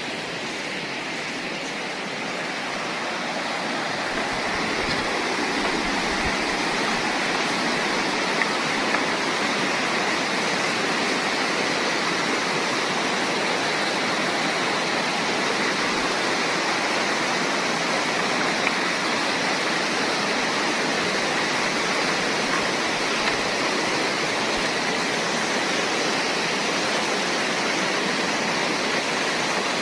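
Rocky stream rushing over stones in shallow rapids: a steady rush of water that grows a little louder about four seconds in.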